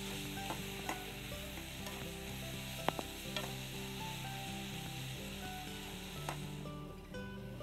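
Chopped red onions and chillies sizzling as they fry in hot coconut oil in a pan, with a spatula stirring and clicking against the pan a few times. The sizzle fades out near the end.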